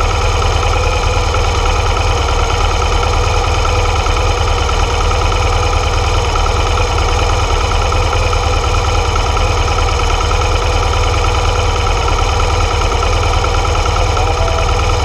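BMW R 1200 GS air/oil-cooled boxer-twin engine running steadily as the motorcycle rolls along at low speed, heard close up from the bike, with a heavy low rumble.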